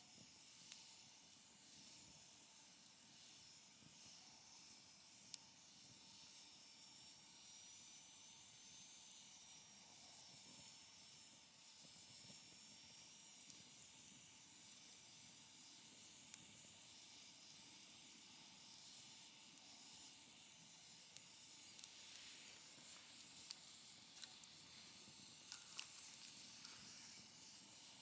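Faint wood fire burning: a soft steady hiss with scattered small crackles and pops, which come more often in the last few seconds.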